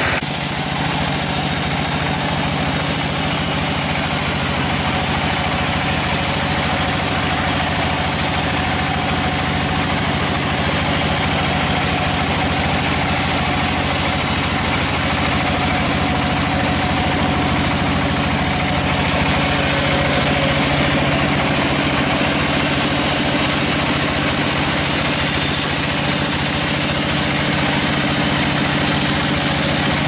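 Band sawmill running steadily, its blade cutting through a redwood log: a constant machine drone under the hiss of sawing. The tone shifts slightly about two-thirds of the way through.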